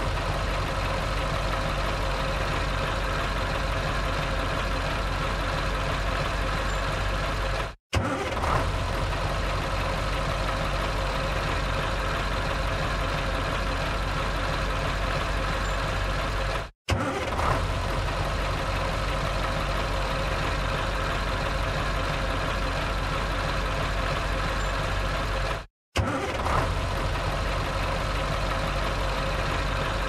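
Truck engine starting and settling into a steady idle, on a loop. Three times the sound cuts out for an instant, and each time the engine catches again with a brief louder surge before idling evenly.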